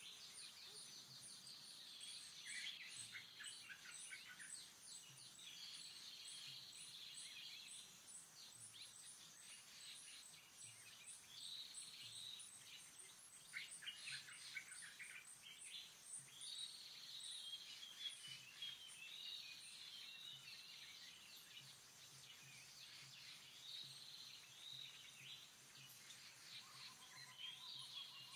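Faint outdoor ambience of birds chirping and calling on and off, over a faint, fast, high-pitched ticking.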